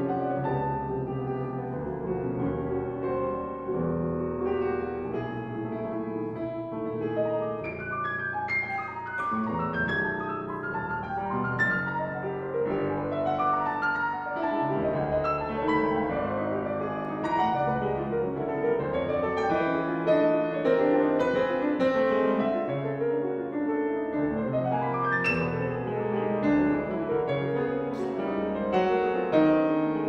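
Steinway grand piano played four hands, in a dense contemporary classical piece. Many quick overlapping notes run across low and high registers, with sharp high accents struck now and then, and it grows a little louder near the end.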